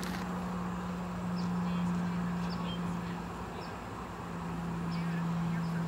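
A steady low hum, with a few short, high, falling bird chirps over it.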